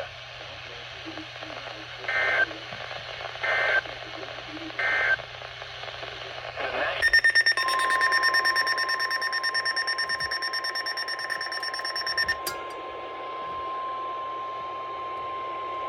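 NOAA Weather Radio alert signalling: three short buzzy data bursts, the SAME digital code that closes the previous warning, then about two seconds later the steady 1050 Hz weather radio alert tone. For its first five seconds a second, louder pulsing electronic alarm tone sounds over it, then cuts off suddenly.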